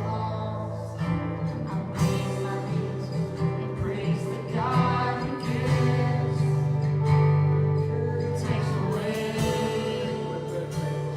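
Live church worship music: a band with guitar and sustained low notes under a beat, with voices singing a worship song.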